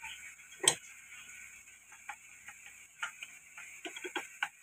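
Egg-and-tomato sauce simmering in a frying pan: a steady faint sizzle with irregular clicks and pops of bubbles bursting. The loudest pop comes just under a second in, and a quick run of pops comes near the end.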